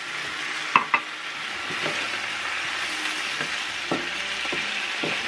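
A pan sauce of bacon, scallion, garlic, vinegar and maple syrup sizzling steadily in a frying pan as it cooks down after water is added. A utensil clicks sharply against the pan twice a little under a second in, and taps lightly a few more times later.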